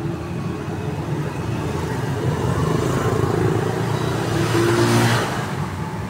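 A motor vehicle engine running steadily, swelling louder from about two and a half seconds in to a peak near five seconds, then falling away.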